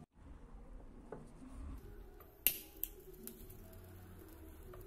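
A lighter is struck with a sharp click about two and a half seconds in, then clicks again more softly, followed by a faint high hiss as it lights the wick of a small oil lamp. Light handling noise runs underneath.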